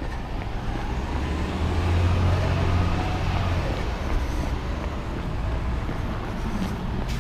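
A motor vehicle passing on the city street: its low engine and tyre rumble swells about a second and a half in and fades after about three and a half seconds, over steady traffic noise.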